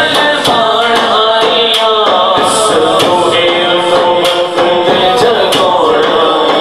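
Male voices singing a devotional Islamic kalam into microphones, with hand percussion keeping a steady beat.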